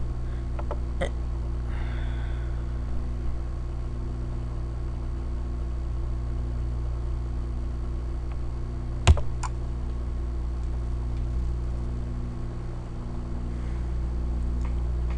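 Computer mouse clicks over a steady low hum and fan noise: one click about a second in, then a sharper pair about nine seconds in.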